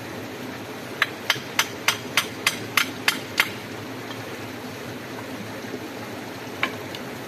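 Hammering: nine quick, even, hard knocks at about three a second, then a single knock a few seconds later, over a steady rushing background.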